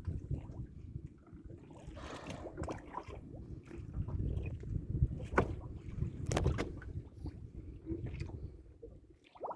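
Boat running on the sea: a low rumble with water noise against the hull, and a few sharp knocks about halfway through.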